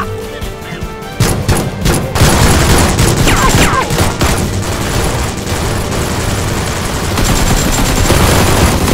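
Rapid, continuous volleys of gunfire, many shots in quick succession, over background music; the shooting gets louder and denser about a second in.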